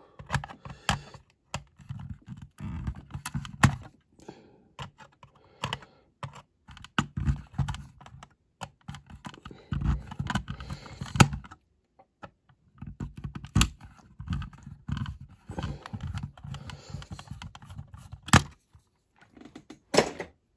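A screwdriver turning out the centre screw from the baseplate of a die-cast toy car, with irregular small clicks, scrapes and handling knocks as the car is held and turned.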